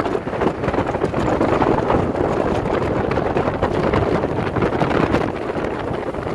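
Bass boat under way at speed: its outboard motor running and water rushing against the hull, under heavy wind buffeting the microphone.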